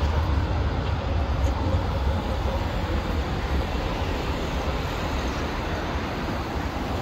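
Steady low rumble of passing vehicles on a city street.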